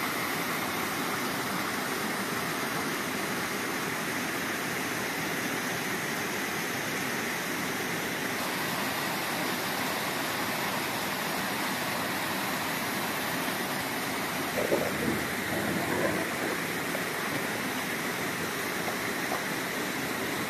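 Stream running with a steady rush of water, and a brief louder sound about fifteen seconds in.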